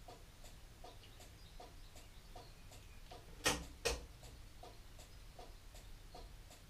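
Faint, steady ticking of the car's indicator flasher relay, about two and a half ticks a second, with two louder knocks a little past halfway through.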